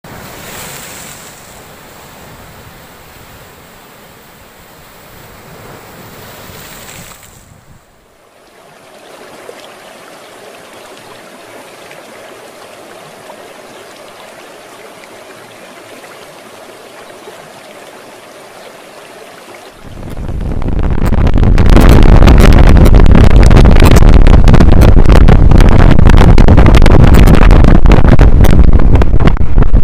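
Sea waves breaking and splashing over a rocky shore. About twenty seconds in, this gives way to a much louder, gusting rush of wind battering the microphone on a moving motor scooter.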